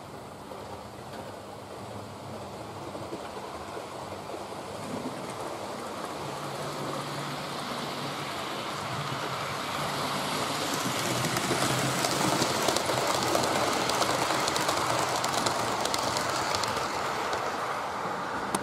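Model steam locomotive and coaches running along model railway track: a steady rolling rumble of motor and wheels that grows louder over the first dozen seconds as the train approaches, then holds, with light clicking from the wheels.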